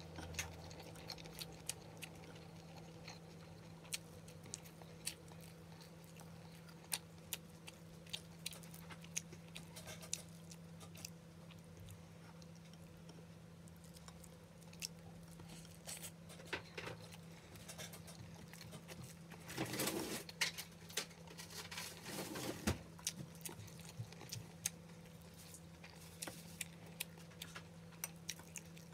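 Close-up eating sounds of a meal eaten by hand: chewing with frequent small clicks and smacks, and fingers pressing rice and picking at fish on a plate, with a couple of louder rustles about twenty seconds in. A steady low hum runs underneath.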